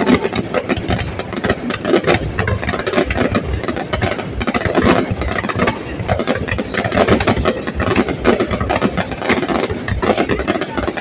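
Fireworks: a dense, unbroken barrage of aerial shell bursts, many rapid bangs and crackles overlapping without a pause.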